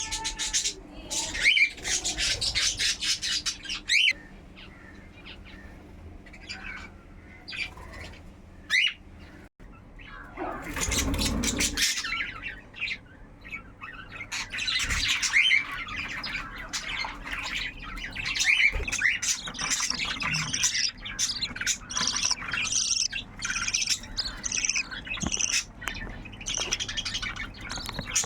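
A flock of caged budgerigars and cockatiels chattering, with many quick high chirps and squawks that thin out for a few seconds and then come thick and constant. A brief low rustling noise comes about eleven seconds in.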